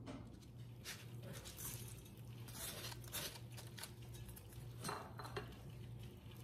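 Faint clinks and taps of kitchen utensils against a glass mixing bowl, several spread over a few seconds, over a steady low hum.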